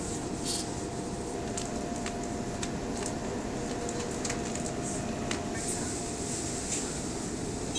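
Steady interior noise of a Waratah A-set electric train carriage: a low rumble and hum with a faint steady tone and a few light clicks.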